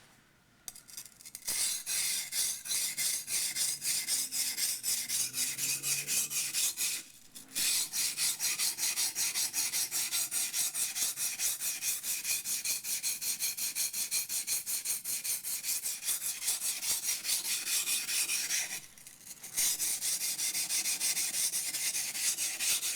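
Yanagi's steel bevel scraping back and forth on a coarse 120-grit waterstone in a layer of mud: a rapid, even run of gritty grinding strokes during bevel grinding. The strokes start about a second and a half in and stop briefly twice.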